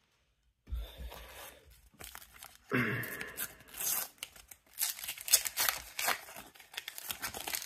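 Panini sticker packets being torn open and their wrappers crinkled and handled, in a string of short rips and rustles after a brief pause.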